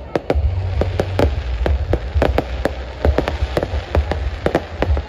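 Fireworks display: many rapid, irregular cracks and pops from shells bursting overhead. Under them runs a dense crackling and a low rumble.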